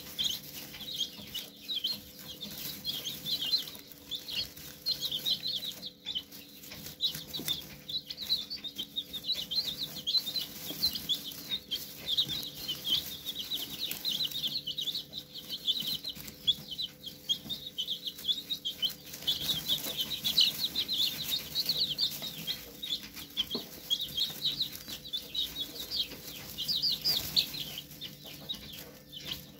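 A brood of young chicks peeping continuously, many short high chirps overlapping one another.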